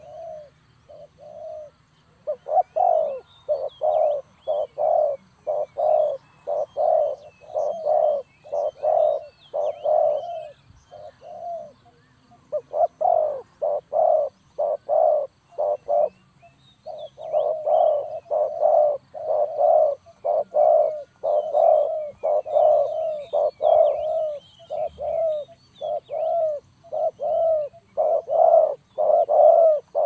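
Spotted dove cooing: a long series of low coos about two a second, with a couple of short breaks around the middle. Small birds chirp faintly in the background.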